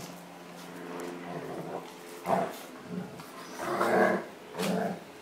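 A German shepherd and a young pit bull growling in rough play-fighting, a few short growls in the second half, the loudest and longest just before the end.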